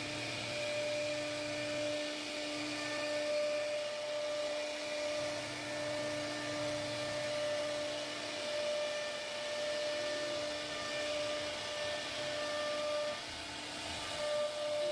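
CNC router spindle running at high speed, its cutter routing grooves into a solid wood door panel: a steady whine over the hiss of cutting, with a short dip in level near the end.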